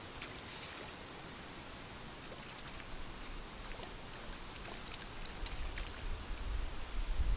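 Steady outdoor hiss of wind with scattered light ticks, and low wind rumble buffeting the microphone that builds toward the end.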